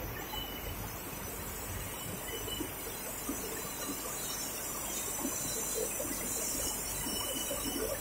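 Steady machinery noise from a rubber extrusion line's haul-off and take-up equipment running, a continuous hiss with faint scattered squeaks.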